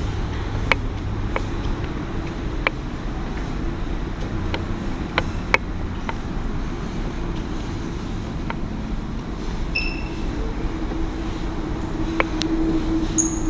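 Steady low road and engine rumble heard inside a moving car's cabin, with scattered small clicks and knocks. A short beep sounds about ten seconds in.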